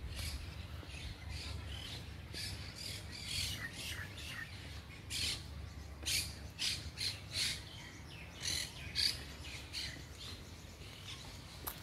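Birds calling in a garden: many short, sharp chirps and squawks in quick runs, thickest about halfway through, over a low steady rumble.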